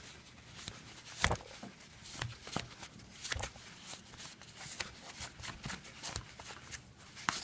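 A cloth rubbing and buffing a small hardwood pipe freshly coated in beeswax rub: irregular short scratchy swishes with light handling clicks, one sharper stroke about a second in and another near the end.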